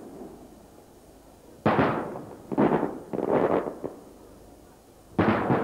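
Aerial firework shells bursting overhead: sudden booms, each with a short echoing tail. Three come in quick succession about two seconds in, and another near the end.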